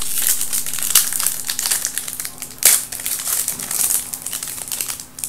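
Trading-card pack wrapper being torn open and crinkled by hand: a run of dry crackles, with sharper ones about a second in and near the middle.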